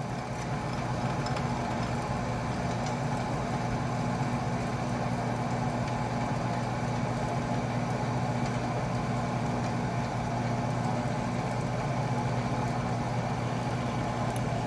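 Atlas metal lathe running steadily under power with an even motor hum, while a die cuts a thread on a brass rod.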